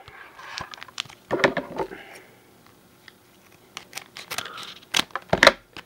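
Naruto trading-card booster pack wrapper crinkling and tearing open as it is handled, in short rustles and crackles, with louder bursts about a second and a half in and near the end.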